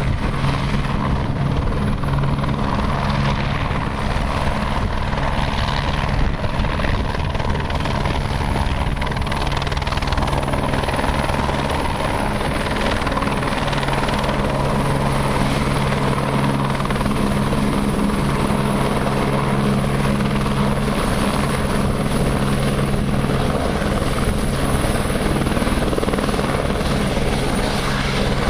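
Eurocopter AS350 Écureuil helicopter in a low hover: steady rotor and turboshaft sound with a thin high turbine whine. The whine dips slightly near the end.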